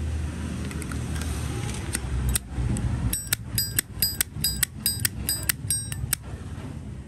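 Brass Zippo lighter lid being flicked open and snapped shut over and over, a quick run of about a dozen sharp metallic clicks starting about three seconds in, each with a high ringing tone.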